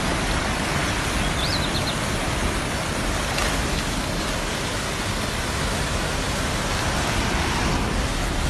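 Steady rushing of a muddy river in flood, running fast and high after heavy rain: an even, unbroken noise.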